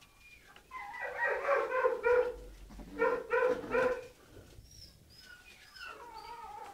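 American Staffordshire terrier puppies whining and yipping: a run of short, pitched yelps over the first few seconds, then fainter, higher whimpers that fall in pitch.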